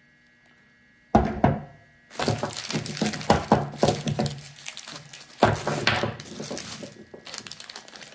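Two knocks as metal pipe fittings are set down on a wooden workbench, then a plastic packaging bag crinkling and rustling as it is handled.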